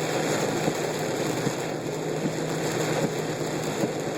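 Car driving through heavy rain on a flooded road, heard from inside the cabin: a steady hiss of rain and tyre spray over a low engine and road hum.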